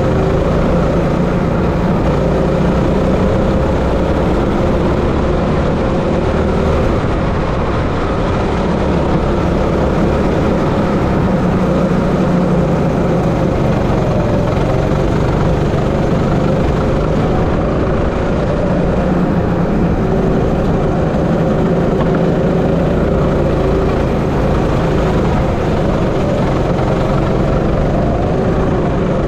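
Onboard sound of a 16 bhp rental go-kart's engine running as the kart is driven around the track. The engine note rises and falls a little with the throttle through the corners and climbs near the end.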